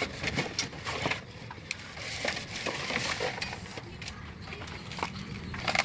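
Scattered light knocks and clinks at an irregular pace, over a faint steady hiss.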